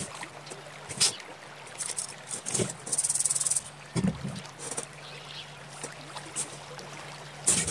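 Potter's hand tools being handled and set down on a wooden workbench: a few sharp clicks and knocks, with a short rapid rattle about three seconds in, over a steady low hum.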